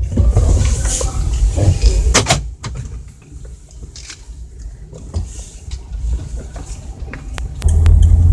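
Low rumble of a car on the move, heard from inside the cabin, with a few sharp clicks and knocks; the rumble grows louder near the end.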